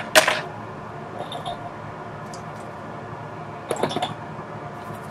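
Short clicks and scrapes of small tools being handled at a microsoldering bench: one sharp scrape just after the start and a quick cluster of clicks near the end, over a faint steady low hum.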